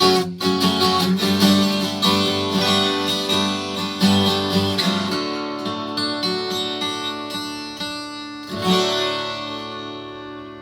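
Yamaha FG820-12 twelve-string acoustic guitar being strummed. Quick chord strokes run for about five seconds, then the playing thins out, and a last chord about eight and a half seconds in is left to ring and fade away.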